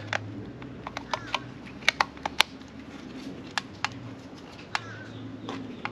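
Irregular sharp little clicks and ticks of fingernails picking at a stuck strip of reflective tape on a handheld digital tachometer's plastic body, over a low steady hum.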